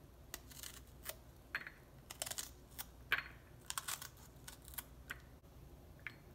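A knife slicing a raw jalapeño pepper into rings, a series of about a dozen short, crisp crunches at an irregular pace as the blade cuts through the firm, juicy pepper.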